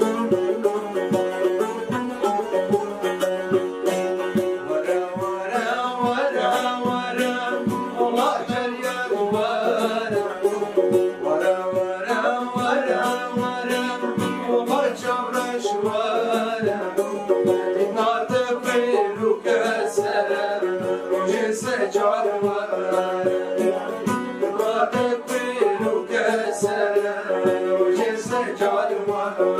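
Kurdish folk song played on a long-necked saz (bağlama) and a banjo-bodied long-necked lute, fast plucked notes throughout, with a man's voice singing over them.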